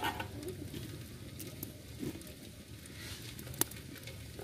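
Faint patter and crackle from a kadai of cooking oil heating on the fire, with a few sharp clicks; the loudest comes about three and a half seconds in.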